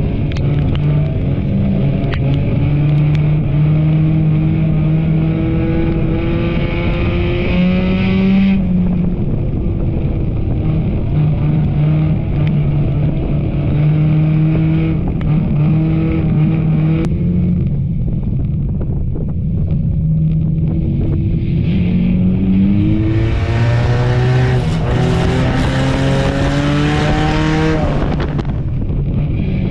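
Enduro race car engine running hard, its pitch climbing and dropping as the throttle is opened and lifted; the revs climb strongly, with a lot of rushing noise, a little past halfway, then fall away near the end.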